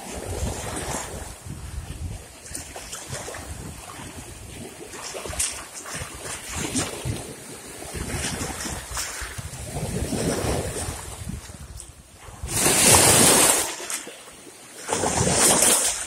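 Small waves washing and splashing against a rocky shoreline in uneven surges, with two louder splashes near the end.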